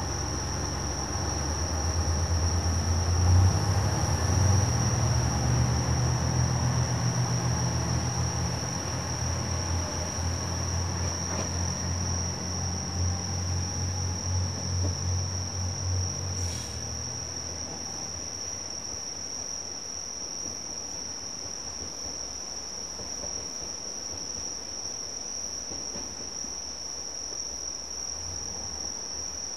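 Diesel express railcar pulling away, its diesel engines giving a low, pulsing hum that fades out about halfway through. Crickets keep up a steady high chirring throughout.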